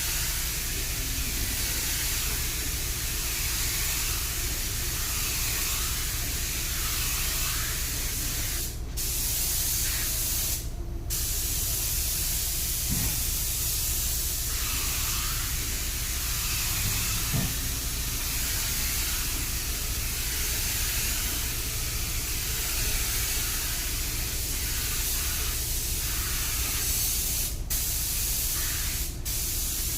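Air spray gun hissing steadily as clear coat is sprayed on a car panel, cutting out briefly four times.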